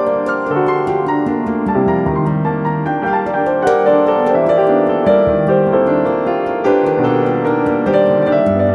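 Piano music: a melody of struck, held notes over lower bass notes, playing steadily.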